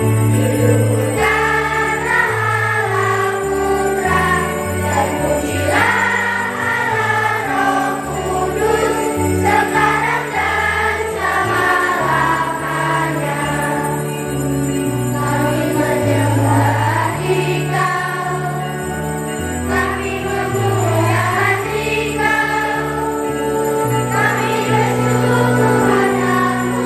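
Children's choir singing with electronic keyboard accompaniment, the keyboard holding bass notes that change every second or two under the voices.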